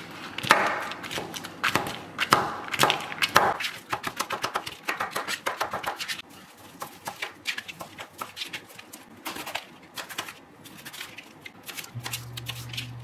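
Kitchen knife chopping roasted peanuts on a plastic cutting board: rapid, irregular knocks of the blade against the board, thinning out and getting quieter after about six seconds. Near the end a low steady hum comes in under the knife strokes.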